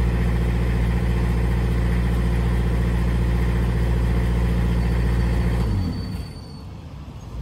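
Diesel engine of a MEC 60-J boom lift running steadily, then near the end winding down in pitch and dropping much quieter.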